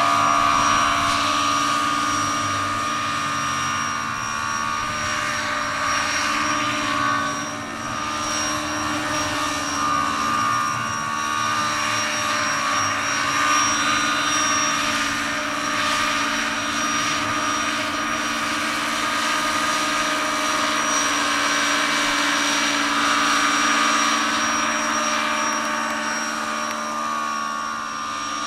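Large radio-controlled scale model of an AgustaWestland EH101 helicopter flying low and hovering: the steady whine of its electric drive and gearing together with the whir of the five-blade main rotor, dipping briefly about seven seconds in.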